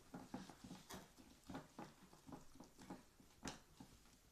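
Faint, irregular soft scraping and tapping of a utensil stirring a thick slime mixture in a bowl, a few strokes a second, with one sharper tick about three and a half seconds in.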